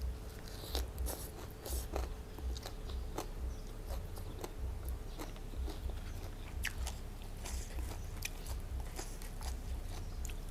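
Close-miked mouth sounds of a person chewing som tam (spicy papaya salad) with crisp raw vegetables. The chewing keeps a steady rhythm of about two bites a second, with many sharp, wet crunches.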